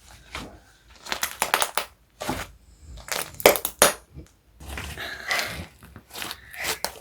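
Slime-making materials handled at close range: irregular short bursts of crinkling and crunching, the loudest about halfway through.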